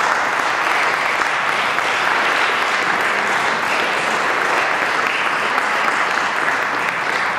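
Audience applauding steadily at the close of a lecture.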